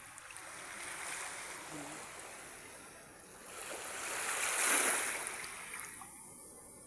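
Shallow seawater washing and sloshing, a rushing noise that swells a little about a second in and more strongly around four to five seconds in, then dies down.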